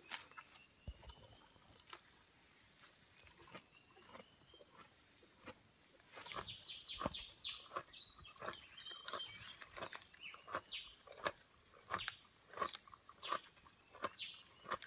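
Sumatran rhinoceros browsing: irregular crunching and snapping as it chews leaves, growing busier and louder about six seconds in. A steady faint high-pitched hum runs underneath.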